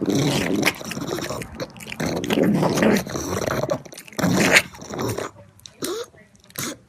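A dog making short, irregular noises, dense at first and then breaking into sparser bursts with quiet gaps.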